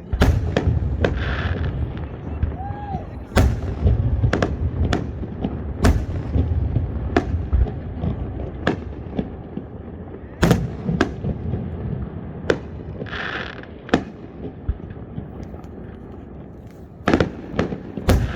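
Fireworks going off: a string of sharp bangs, loud ones every few seconds with smaller pops between, and two short crackling bursts, one about a second in and one about two-thirds of the way through.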